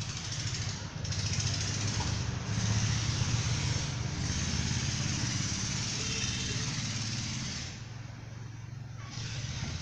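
Steel pivoting template scraping around the wet cement of a large pot mould, in strokes of a second or so with short breaks, easing off near the end. Beneath it runs a steady low motor hum.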